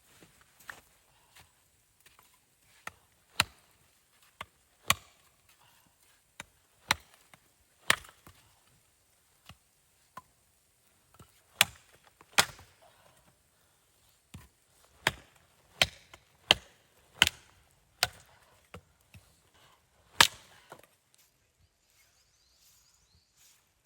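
Wood being chopped: about twenty sharp blows at an irregular pace, roughly one a second, stopping near the end.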